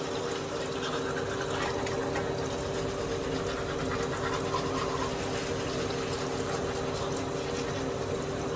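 Teeth being brushed with toothbrushes over a steady rushing noise with a constant low hum in a small tiled bathroom.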